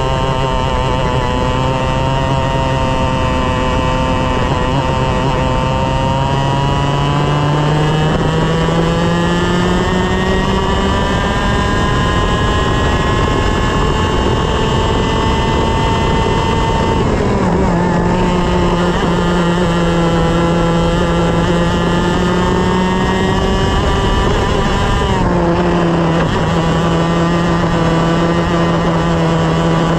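A 125 cc two-stroke TaG kart engine heard from on board, pulling up through the revs in one long slow rise. It drops sharply as the driver lifts about 17 s in, holds, dips again near the 25-second mark, and then climbs once more.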